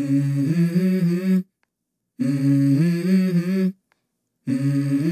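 A low voice humming a short melody in three phrases of about a second and a half each, each stepping up in pitch, separated by short pauses.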